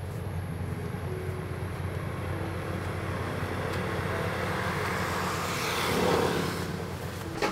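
Motor vehicle engine running and driving past: a low rumble that grows louder, is loudest about six seconds in, then fades away.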